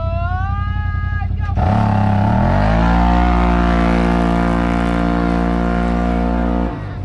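Yamaha Wolverine RMAX 1000's parallel-twin engine, fitted with a performance tune and performance muffler, idling. About a second and a half in it goes to full throttle for an acceleration run: the revs climb for about a second and a half, then hold steady at high revs, and the sound cuts off abruptly near the end.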